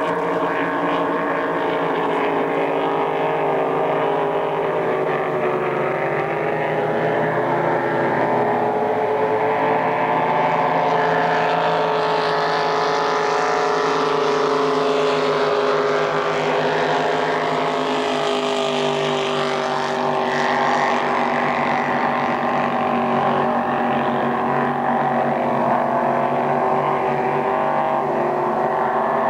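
Engines of several racing hydroplanes running flat out, a steady drone of overlapping engine pitches that drift slightly. It grows fuller and brighter in the middle as a boat runs nearer.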